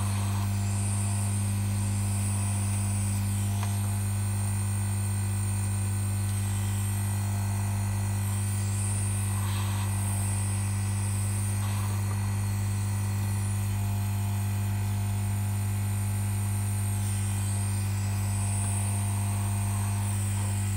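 Hot air rework gun blowing steadily into an opened thermal camera's housing, giving a constant low electrical hum under a high, airy hiss, as the circuit board is heated to bring on a heat-related fault.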